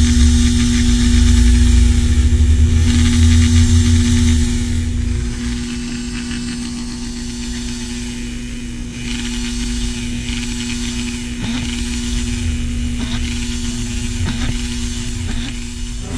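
Small electric motor running steadily with a constant hum, typical of a bench power tool such as a sander or edge burnisher in leatherwork. Its low rumble eases about four seconds in.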